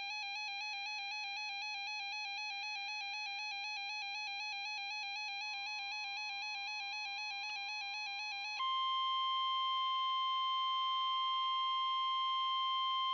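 Emergency-alert tones: an electronic alarm warbling rapidly between two pitches for about nine seconds. It then gives way to a loud, steady single tone, the NOAA Weather Radio 1050 Hz warning alarm tone that comes before a new warning.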